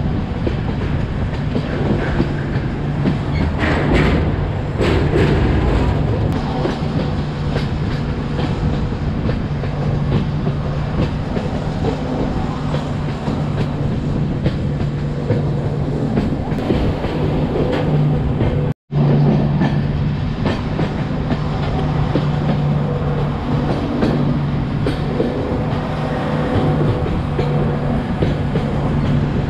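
Passenger express train running, with the rumble and clatter of its wheels on the rails under a steady low hum. The sound drops out for an instant about two-thirds of the way through.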